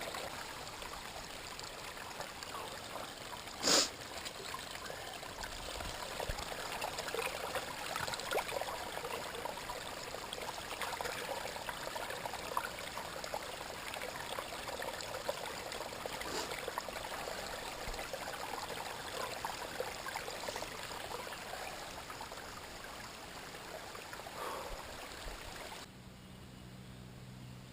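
Small stream trickling and splashing, with one sharp click about four seconds in. The water sound cuts off abruptly near the end, leaving a quieter background with a faint low hum.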